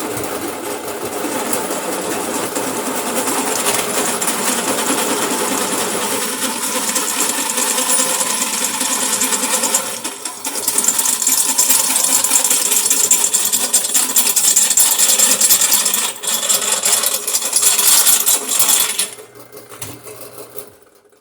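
Drill press boring through quarter-inch steel channel, the twist bit grinding and chattering against the metal over the motor's running. The bit is slow to bite in. The cutting eases off briefly about halfway and stops shortly before the end.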